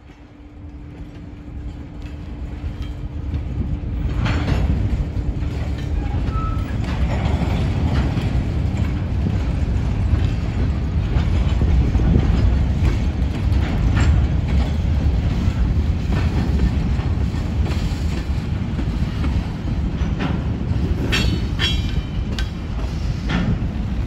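Freight cars of a local train rolling past, wheels clattering over the rail joints in a steady heavy rumble, with a cluster of sharper clicks near the end. Wind buffets the microphone.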